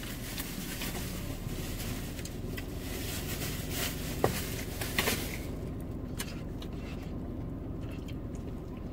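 Eating sounds: light clicks and scrapes of plastic forks in paper food cups, with two sharper clicks about halfway through. Under them runs a steady low hum from the car.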